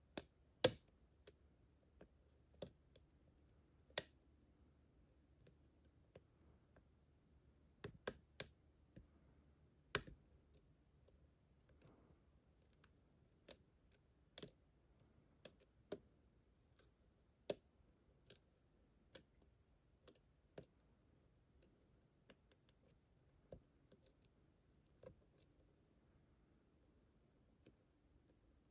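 Irregular small, sharp metallic clicks of lock picks and a tension wrench working a six-pin GEGE pExtra lock cylinder, a few louder clicks near the start.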